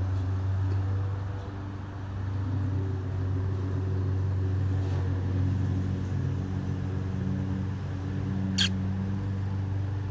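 Cat purring steadily, with one brief sharp click or squeak near the end.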